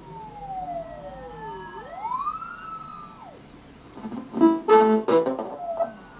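Analog synthesizer module sounding thin electronic tones that slide in pitch, one falling as another rises so that they cross, like a warbling siren. About four seconds in it gives a few short, buzzy notes, and near the end a tone slides slowly downward.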